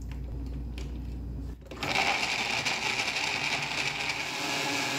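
Countertop blender with a glass jar switches on a little under two seconds in and runs steadily, grinding sliced carrots with oil and water into a puree.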